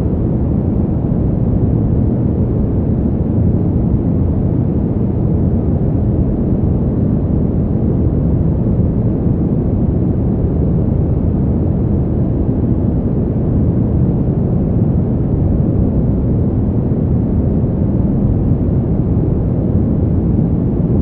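Brown noise: a steady, deep rushing hiss, loudest in the low range and with little treble, unchanging throughout.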